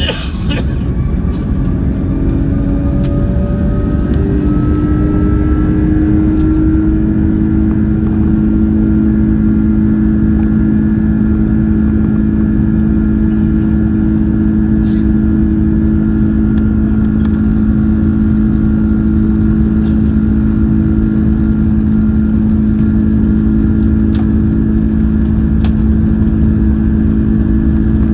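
Turbofan engines of an AirAsia airliner, heard from inside the cabin over the wing, spooling up for takeoff. Their whine rises in pitch for about the first seven seconds, then holds steady as a loud roar.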